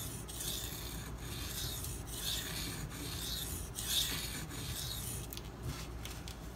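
A 52100 steel knife blade being stroked back and forth on a coarse (320-grit) Shapton Pro whetstone, a rasping scrape with each pass, a little more than one pass a second. The strokes stop about five seconds in, leaving a few light clicks.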